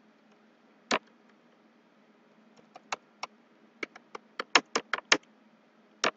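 Computer keyboard keys clicking as text is typed. There is a single keystroke about a second in, a few scattered ones, then a quicker run of about half a dozen past the middle, all over a faint steady low hum.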